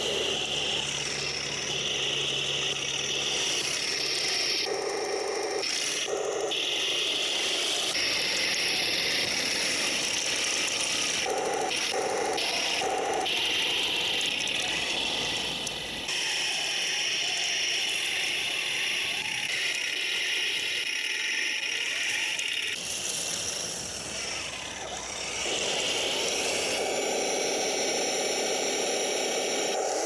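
Taigen Panther 1/16 RC tank driving over rough ground: electric drive motors whining through metal gearboxes, with metal tracks rattling. The whine changes and cuts in and out several times as the tank drives, stops and turns.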